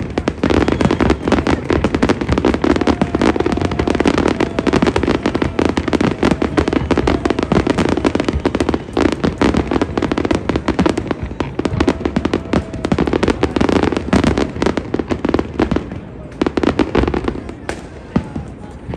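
Fireworks display with a dense barrage of overlapping bangs and crackling from bursting shells, easing off somewhat near the end.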